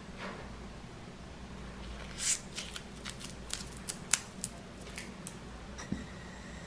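Irregular small clicks and crinkling crackles, about a dozen in a few seconds, two of them sharper, from fingers handling a plastic bubble-balloon film and its squeeze tube, over a faint steady hum.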